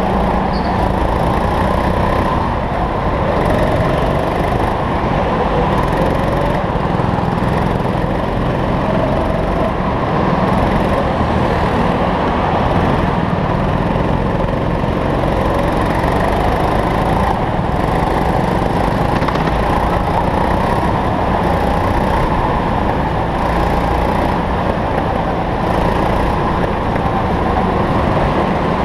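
Go-kart's small petrol engine running hard, heard from onboard the kart, its pitch drifting up and down with the throttle under a loud rushing noise.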